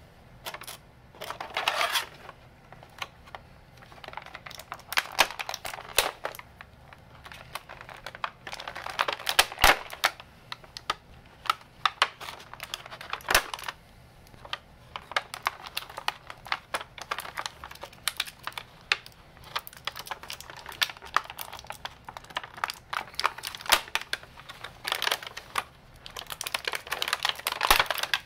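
Clear plastic packaging crinkling and crackling in irregular bursts, with many sharp clicks, as it is handled and an action figure is worked out of its plastic tray.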